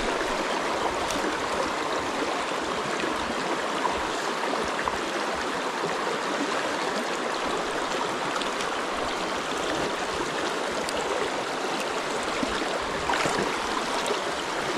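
River water rushing steadily, an even hiss of flowing current with no change through the stretch.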